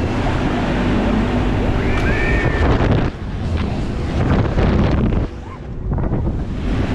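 Rushing wind buffeting the action camera's microphone as the No Limit pendulum ride swings through the air, easing briefly about three seconds in and again after five seconds. A short high voice, a rider's scream, rises over it about two seconds in.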